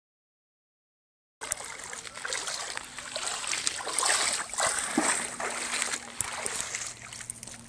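Shallow water splashing and sloshing around wading legs, starting abruptly about a second and a half in. A faint steady hum joins in the second half.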